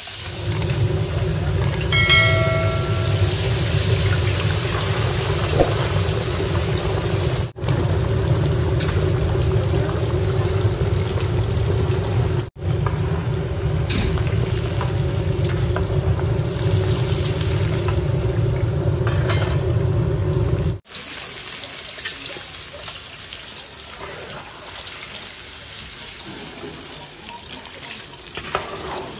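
Fish pieces deep-frying in hot oil in a wide wok, a steady sizzle that breaks off briefly at three edits and is quieter over the last third. A short pitched tone sounds about two seconds in.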